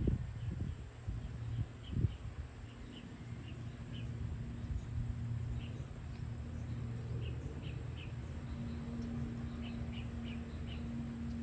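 Outdoor evening ambience: small birds give short high chirps, singly and in quick runs, over a steady low rumble and hum that grows stronger after about eight seconds. There are a few low thumps in the first two seconds.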